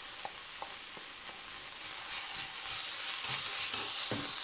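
Spinach and chopped bell peppers sizzling as they fry in a pan, with a wooden spoon stirring through them and a few light taps; the sizzle grows louder about two seconds in.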